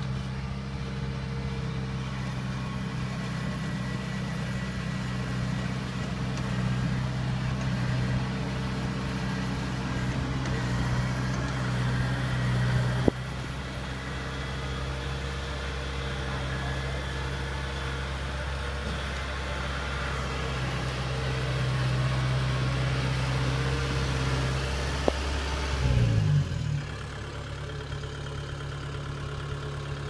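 Kubota crawler rice combine harvester's engine running steadily as the machine travels. A sharp click comes about 13 seconds in, and near the end the engine note wobbles briefly and settles onto a slightly different steady pitch.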